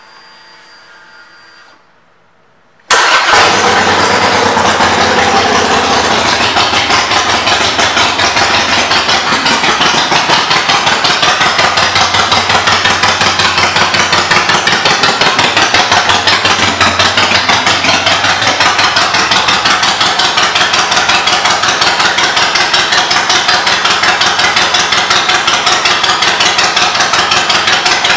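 Harley-Davidson Iron 883's air-cooled 883 cc V-twin, fitted with Vance & Hines aftermarket pipes, starts up about three seconds in and then idles loudly with an even pulsing beat.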